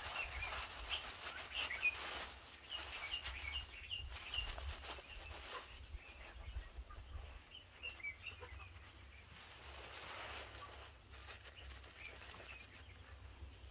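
Birds chirping and calling in short repeated notes, busiest in the first few seconds, with a few higher sweeping whistles. Under them is the soft wet squishing of lathered hair being scrubbed by hand.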